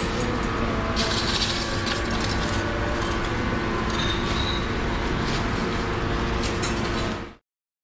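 Steady mechanical rumble with a constant hum and occasional bursts of hiss, cutting off suddenly near the end.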